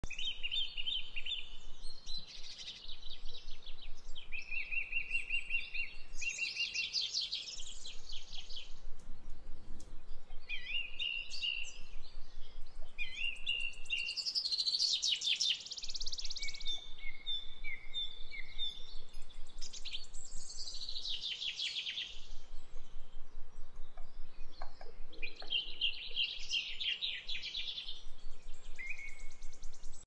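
Songbirds singing: high-pitched phrases of chirps and fast trills, each a second or two long, coming one after another with short gaps, some overlapping.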